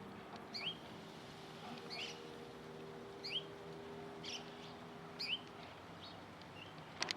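A small bird calling: a series of short, upward-sweeping chirps, about one a second, over a faint steady hum.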